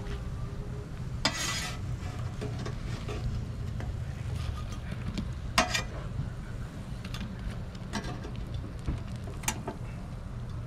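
Perforated steel spatula scraping and tapping on a Blackstone griddle's flat-top and against a plate: a handful of sharp scrapes and clicks, the longest about a second in, over a steady low hum.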